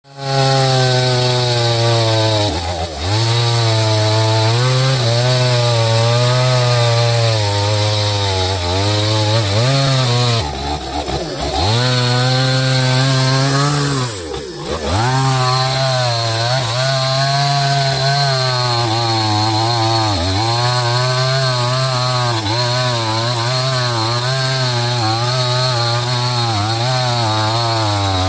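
Small two-stroke chainsaw running at high revs as it cuts through a felled jengjen (albizia) log, its engine pitch wavering under load and dropping briefly three times as the chain bites deeper or eases off.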